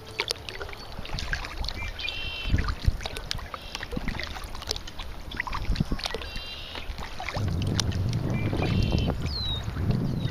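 Red-winged blackbirds singing, their short buzzy trilled songs coming several times among scattered small clicks. About three-quarters of the way through, a steady low rushing noise sets in.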